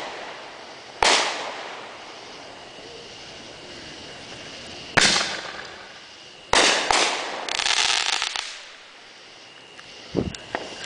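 Consumer fireworks going off: three sharp bangs about a second, five seconds and six and a half seconds in, each fading away, then a second of dense crackling and a few smaller pops near the end.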